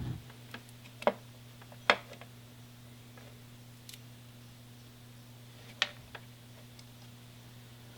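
Small motorcycle throttle-cable parts being handled and fitted by hand: scattered sharp clicks and taps, the loudest about one, two and six seconds in, over a steady low hum.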